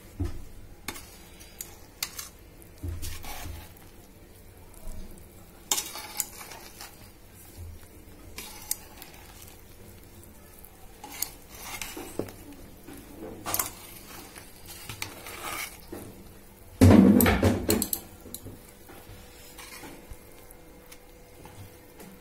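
Metal spoon stirring cooked biryani rice in a metal pot, with scattered scrapes and clinks against the pot's sides and base. There is one louder clatter of about a second roughly three-quarters of the way through.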